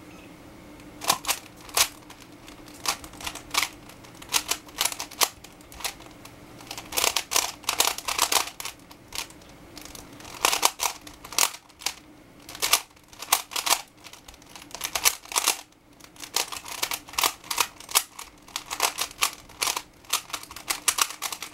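A 3x3 Rubik's cube being turned fast in a speedsolve: bursts of rapid clicking layer turns with short pauses between them, starting about a second in.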